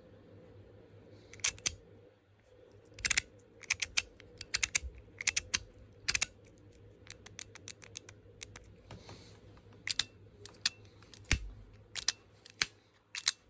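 Metal Zoom slider multi-fidget being worked in the hand: its sliding parts snap back and forth, giving a run of sharp, irregular clicks and clacks, some in quick pairs.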